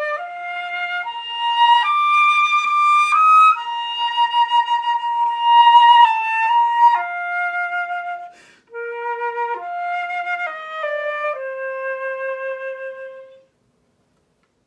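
Flute playing a slow melody of held notes, one at a time, with a brief break about two-thirds of the way through and a final long low note.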